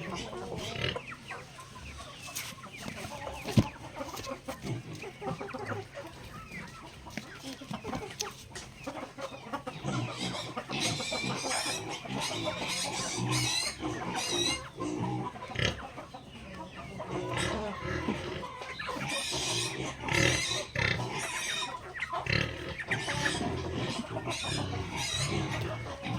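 Backyard chickens clucking and calling on and off, growing busier about ten seconds in, with one sharp click a few seconds in.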